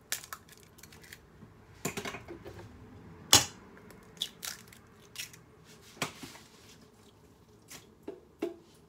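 Eggs being cracked against the rim of a stainless steel mixing bowl: a string of sharp taps and clicks, about a dozen in all, the loudest a little over three seconds in, with smaller shell cracks and clinks between.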